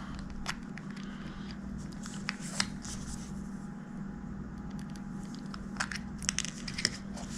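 Scattered small clicks and light handling noises from a tiny light meter's battery compartment being opened and checked, over a steady low hum.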